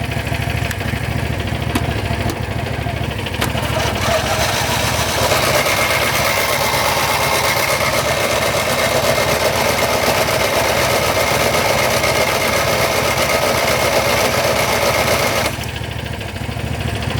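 John Deere GT225 garden tractor being cranked on its starter for about fifteen seconds without firing: a whirring with a thin high whine that grows louder a few seconds in and cuts off suddenly near the end. The warmed-up engine will not catch. Another engine idles steadily underneath throughout.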